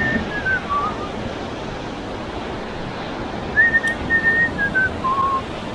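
Sea surf breaking and washing over rocks, a steady rush of noise. Over it, a few whistled notes stepping down in pitch, at the very start and again from about three and a half seconds in.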